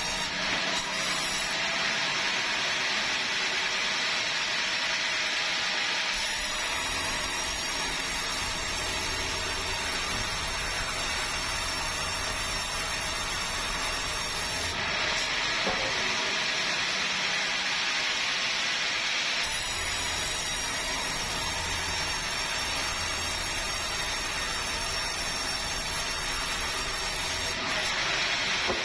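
An engine-driven sawmill saw cutting bengkirai hardwood in repeated passes. A hissing cut lasts several seconds and alternates with longer stretches of the machine running with a lower rumble between cuts. Cuts start about a quarter of the way through and again near the end.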